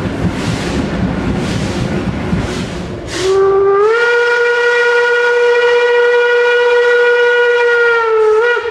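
German class 52 steam locomotive 52 8134 working under steam, its exhaust beats coming about every two-thirds of a second. About three seconds in, its steam whistle sounds: a loud chord that slides up in pitch, holds steady for about five seconds, then cuts off.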